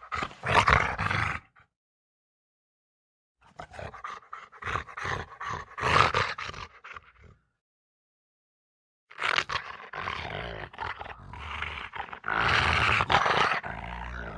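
Three separate animal roar-like calls, a short one and then two longer ones, each cut off into dead silence like separate sound-effect clips.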